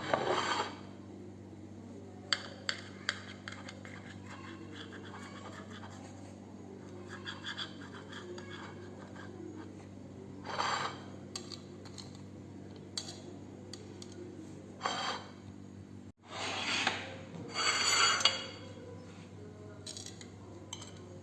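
Scratching and rubbing from a freshly baked limona, a soft cotton-textured brioche, being cut and pulled apart by hand, with a few light clicks. Louder scraping comes at the start, about ten and fifteen seconds in, and again near seventeen seconds, over a low steady hum.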